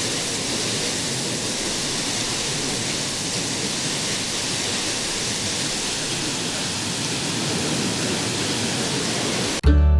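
Steady rushing water, an even hiss across all pitches. Near the end it cuts off abruptly and acoustic guitar music begins.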